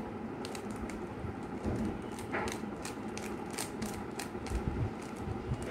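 Rubik's cube being turned by hand: rapid, irregular plastic clicks and clacks as the layers snap around.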